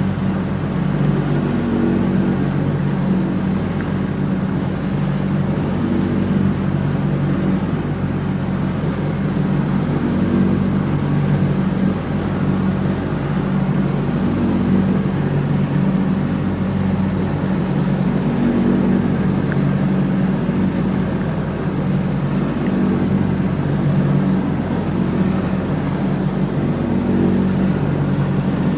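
John Deere X304 lawn tractor's engine running steadily under mowing load, its pitch swelling and easing slightly every few seconds.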